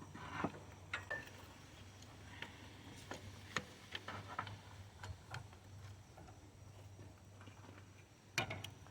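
Faint, irregular metallic clicks and taps of hand tools working loose the accessory belt tensioner on a Toyota Camry 2.4L engine.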